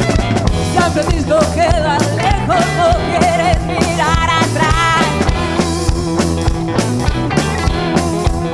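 A live band playing an uptempo boogie: electric guitars, electric bass and a drum kit keeping a steady beat, with a woman singing into a microphone.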